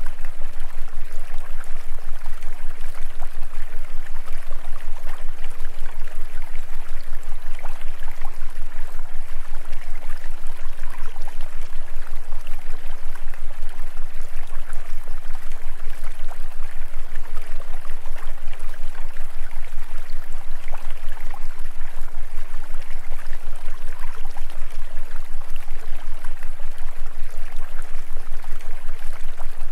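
Steady running-water sound like a flowing stream, unchanging throughout, with a constant low hum underneath.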